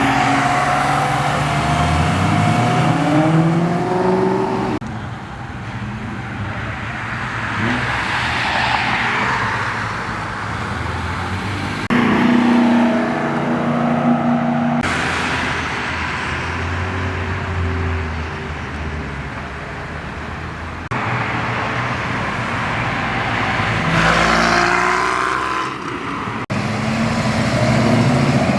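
Cars pulling away one after another with engines revving and accelerating. Their exhaust notes rise in pitch, then swell and fade as they pass, with several abrupt cuts from one car to the next.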